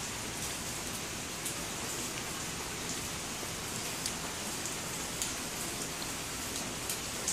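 Heavy rain falling steadily, an even hiss with a few faint ticks of single drops.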